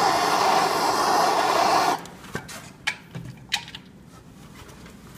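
Handheld gas torch flame burning with a steady hiss as it preheats an aluminum snowmobile heat exchanger to burn out antifreeze before welding. The flame cuts off suddenly about two seconds in, followed by a few light clicks and knocks.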